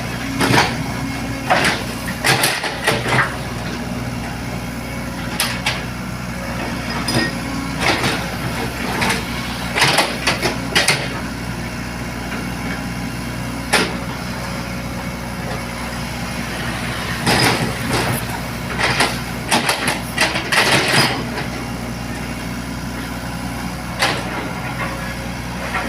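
Excavator's diesel engine running steadily at a low hum, with irregular sharp knocks and clatters, bunched in groups of several a few times.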